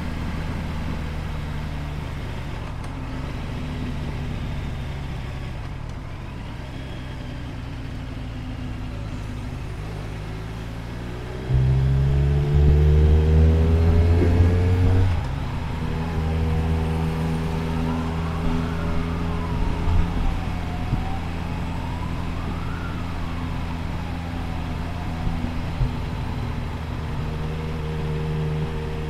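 Motorcycle engine running on the road; about twelve seconds in it accelerates, the revs climbing for a few seconds before settling back to a steady cruise. Through the middle of the stretch a siren wails, rising and falling slowly twice.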